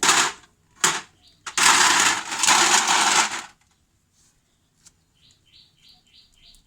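Hand-tool work on a brake caliper while its inner seal is being removed. There are loud noisy bursts of scraping or hissing, the longest lasting about two seconds, followed by a run of light ticks about three a second.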